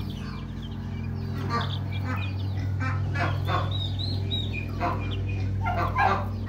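Young chicks and baby quail peeping and chirping in a brooder, with many short high chirps and a few louder calls, over a steady low hum.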